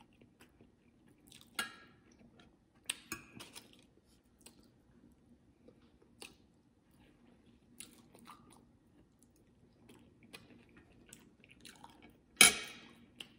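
Close-up chewing and mouth sounds of someone eating salmon and vegetables, with scattered small clicks and smacks. One loud, sharp smack comes near the end.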